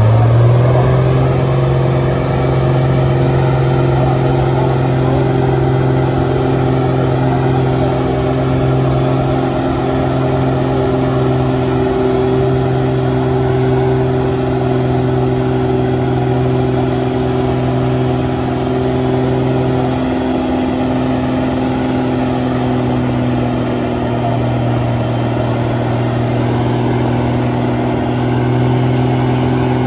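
An engine revving up as it begins, then held at a steady speed, with one brief dip about twenty seconds in.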